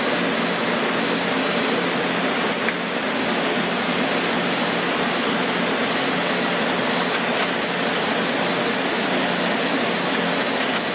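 Steady rushing noise of fans or ventilation in the room, with a few faint clicks from the clear plastic air baffle being handled and seated over the processors and memory of an HP ProLiant DL380p Gen8 server.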